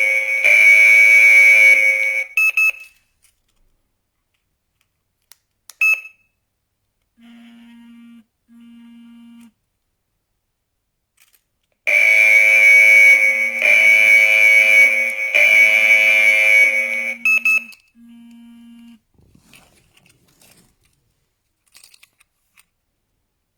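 Thustar WiFi alarm system's siren sounding a loud, steady high-pitched tone in segments about a second and a half long, stopping about two seconds in and sounding again for about six seconds near the middle. Short high chirps and a fainter low buzz come in the gaps between.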